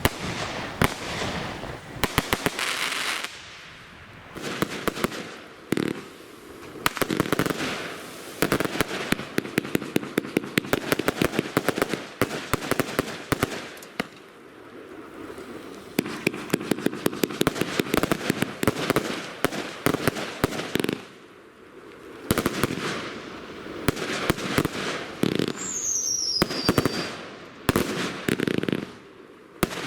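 Firework cakes going off: volleys of rapid launch shots and crackling bursts in waves with brief lulls between them, and a falling whistle near the end.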